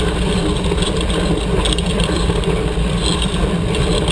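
Steady wind rumble on the microphone of a camera mounted on a tandem mountain bike riding a dirt forest trail, mixed with tyre noise on the dirt and gravel.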